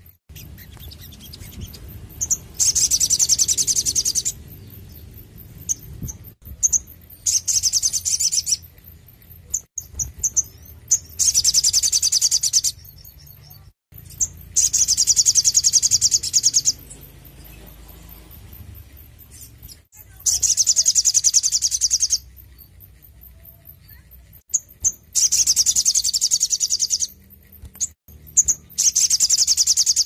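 Male sunbird singing in repeated bursts of rapid, high-pitched trills, each about two seconds long, with short single chirps between them.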